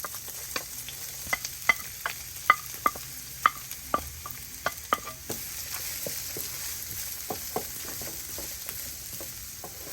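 Onion frying in oil in a pan with a steady sizzle, while a spoon stirs it, tapping and scraping against the pan in irregular clicks, most of them in the first half.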